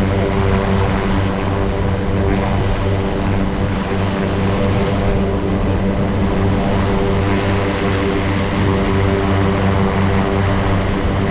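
MTOsport gyroplane's engine and pusher propeller running steadily at a constant pitch, with loud rushing air over the microphone.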